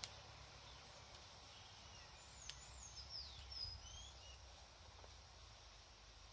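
A single sharp snip of bonsai scissors cutting a twig. About two seconds later a small bird gives a quick run of high, sweeping chirps, all faint against a quiet outdoor background.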